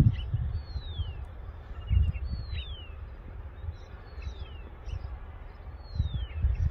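A bird repeating one short falling whistle four times, about every two seconds, over a low rumble with a few soft bumps.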